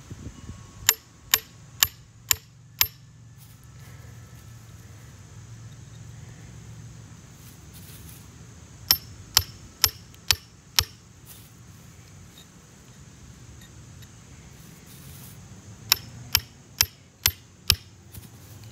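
Mallet blows on a chisel held against a geode, in three bursts of five sharp taps about two a second, scoring a line around the stone to crack it open.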